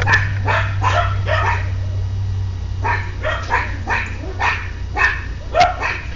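Chihuahua barking in quick, high, short yaps, about two to three a second, with a brief pause about two seconds in, calling to the neighbour's dogs through the fence.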